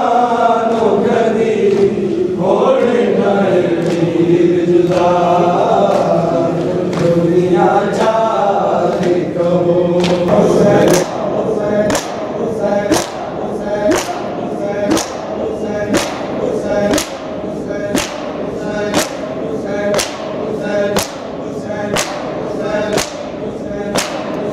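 Group of men chanting a mourning lament in unison. About halfway through, matam begins: palms strike bare chests together in a steady beat of about one blow a second, while the chant carries on underneath.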